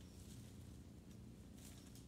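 Near silence: faint woodland ambience with a few soft, brief rustles over a low steady hum.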